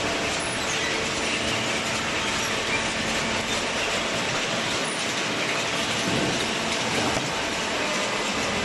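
Cardboard baler with its feed conveyor running: a steady, dense mechanical noise with a faint steady hum underneath.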